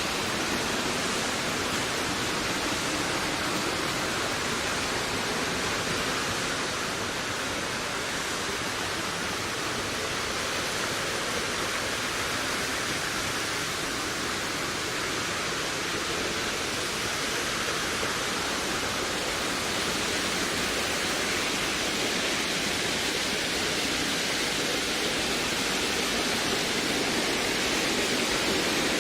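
Steady wind rushing through a forest, a continuous even hiss that eases a little partway through and builds again near the end.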